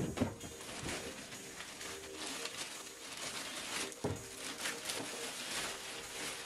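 Clear plastic wrapping crinkling and rustling as it is pulled up off a band saw, with a knock at the start and another about four seconds in.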